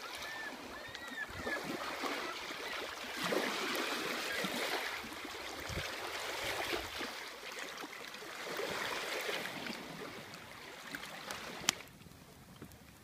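Small waves lapping at the shore of a large lake, a steady wash that swells and fades every couple of seconds. There is a sharp click near the end.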